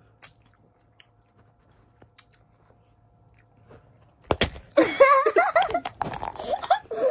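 Quiet chewing and mouth clicks of someone eating sour candy. About four seconds in there is a sudden loud noise, followed by a person's loud, wavering, drawn-out vocal sounds without words.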